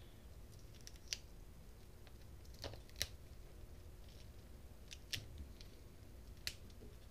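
Faint handling of a battery pack's wiring: fingers picking at sense wires and a small plastic connector, making a handful of short, sharp clicks spread out between quiet stretches.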